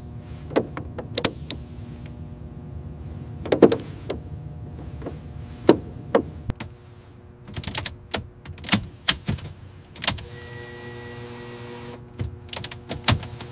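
Ratchet wrench turning a fastener in a metal aircraft fuselage panel: irregular sharp metallic clicks and clanks over a low steady hum.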